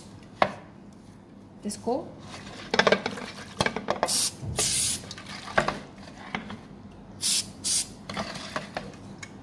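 Aerosol cooking spray hissing into a bundt pan to grease it, in four short bursts, two about four seconds in and two more near the end, with a few light clicks and knocks between them.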